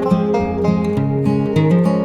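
Background music: acoustic guitar strumming in a bluegrass-country style, with plucked notes changing every fraction of a second.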